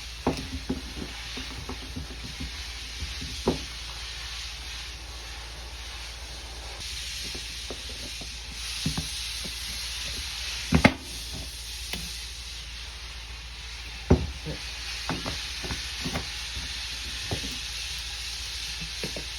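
A steady hiss with scattered knocks and clicks from handling work in a body shop, the loudest knocks about eleven and fourteen seconds in.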